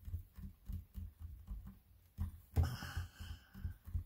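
Fingers pressing and tapping a strip of polymer clay against a cutting mat: a run of soft low thumps, several a second, with a short breathy rustle about two and a half seconds in.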